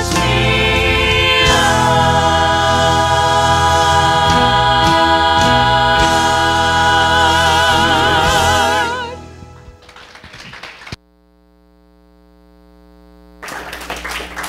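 A gospel vocal trio of two women and a man singing in harmony with instrumental accompaniment, closing on a long held chord with vibrato that fades out about nine seconds in. The music cuts off at about eleven seconds, leaving a faint steady hum, and room noise picks up again near the end.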